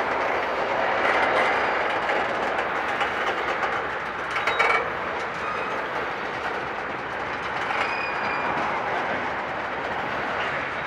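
Loaded freight tank cars rolling slowly past on steel wheels: a steady rumble and clatter of wheels over the rail and running gear. About four and a half seconds in there is a short burst of louder metallic clanking with a brief high squeal.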